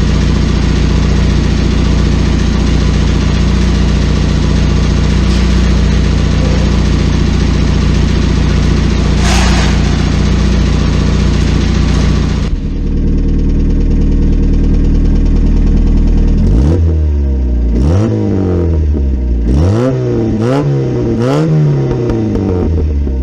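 Fiat 128 Rural's four-cylinder engine running through a newly fitted sport exhaust: it idles steadily for about twelve seconds, then is revved in about five quick throttle blips, each rising and falling, near the end.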